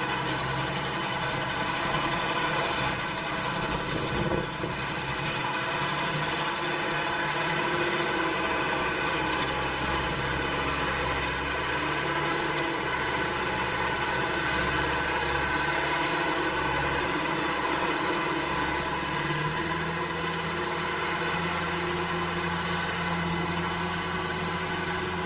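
Diesel-type engine of heavy farm machinery running steadily. Its low hum shifts in pitch a few times.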